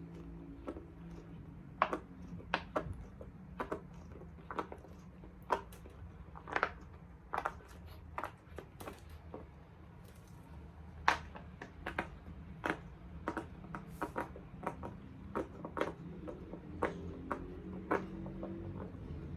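Bubbles of a large silicone pop-it fidget toy being pressed and popping: a string of irregular short pops, about one or two a second, over a faint steady hum.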